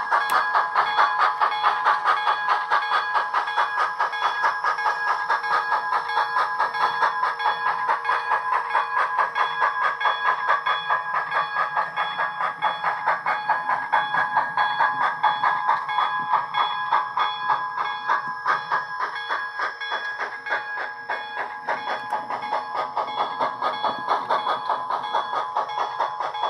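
Soundtraxx TSU-2200 Steam2 sound decoder in an HO-scale Proto 2000 0-8-0 steam locomotive model playing steam exhaust chuffs through the model's small speaker, an even beat of about four chuffs a second over a few steady tones, while the locomotive runs.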